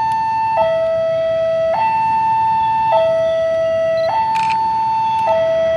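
Railway level-crossing warning alarm: an electronic two-tone signal switching between a higher and a lower tone about every 1.2 seconds, warning of an approaching train.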